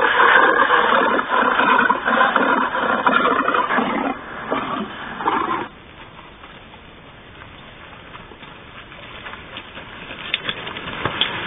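Recorded lion growls and snarls played back through a loudspeaker, cutting off suddenly about six seconds in; a few faint clicks follow near the end.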